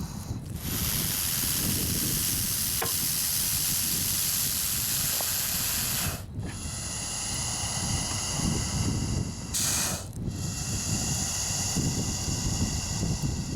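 Bullsnake giving its defensive hiss: long, loud hisses of air forced out of its lungs past the glottis, the rattlesnake-like warning of a threatened bull snake. The first hiss lasts over five seconds, then two more follow after short breaks, with a brief harsher burst between them. Wind buffets the microphone throughout.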